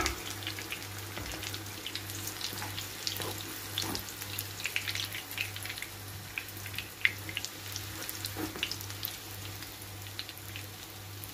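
Pişi dough deep-frying in plenty of hot oil in a frying pan: a steady sizzle with many scattered crackling pops.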